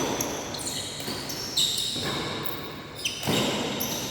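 Badminton rally: rackets striking the shuttlecock about three times, roughly a second and a half apart, with court shoes squeaking on the floor.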